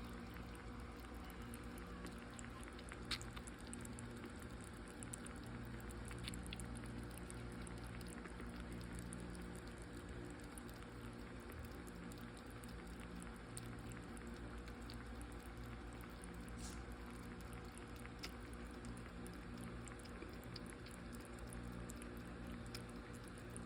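Kitten lapping water, a faint run of small wet licks over a steady low hum.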